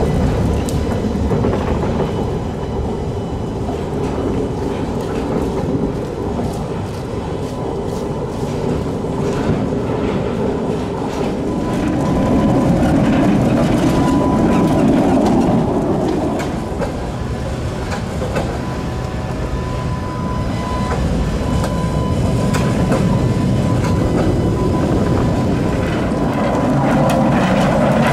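Tatra tram wheels rolling over a temporary climbing switch laid on top of the tram track, steel wheels clattering and knocking over its ramps and overlay rails. It swells louder about twelve seconds in and again near the end, with a faint steady whine in the middle stretch.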